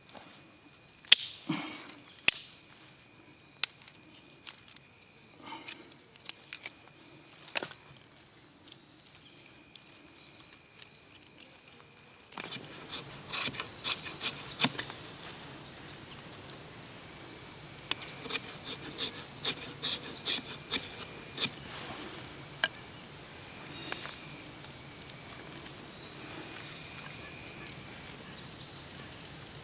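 Knife being batoned through small sticks of firewood: sharp wooden knocks a second or so apart over the first eight seconds, the loudest about two seconds in. From about twelve seconds a steady high insect drone comes in behind quicker clicks of the knife working the wood.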